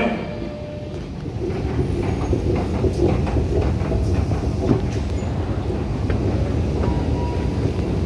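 London Underground Jubilee line train rumbling through the station, a steady low rumble that grows louder about a second and a half in, with scattered light clicks.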